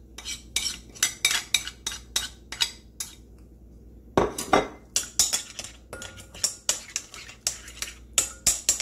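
Metal spoon clinking and scraping against a plate and a glass mixing bowl, then stirring and beating egg, mayonnaise and spices in the glass bowl, a quick run of clinks. A heavier knock about four seconds in.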